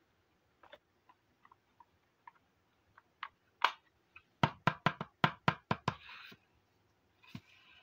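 Small plastic toy refrigerator being handled: a few faint clicks, then a sharp click and a quick run of about eight hard plastic knocks around the middle, followed by short brushing sounds.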